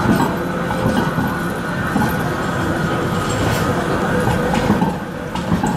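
Manchester Metrolink trams passing each other on street track: a steady run of steel wheels on rail and motors, with steady high tones held above the rumble.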